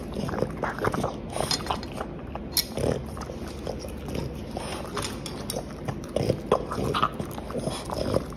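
French bulldog chewing and licking at a tough tentacle held to its mouth: wet mouth sounds and irregular clicks of biting, with no steady rhythm.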